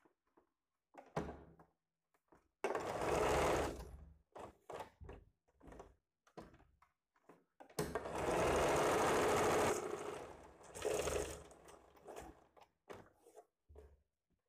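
Sewing machine stitching in short runs: about a second and a half of running near the start, a longer run of about two seconds in the middle, and a brief one just after, with faint clicks in the pauses.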